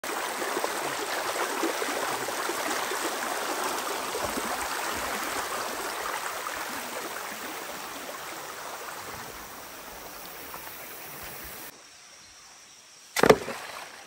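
Shallow stream running over stones, a steady water rush that slowly fades and then cuts off abruptly. About a second later comes a single sharp knock, the loudest sound.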